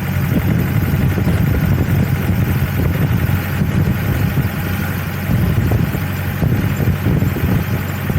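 Safari jeep's engine running steadily as it drives, heard from aboard as a low, continuous drone.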